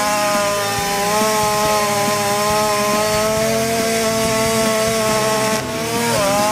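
Stihl MS 660 two-stroke chainsaw running at full throttle in a felling cut through a large spruce trunk, its pitch steady and sagging slightly under load. Near the end the sound dips briefly, then the pitch climbs as the saw speeds up.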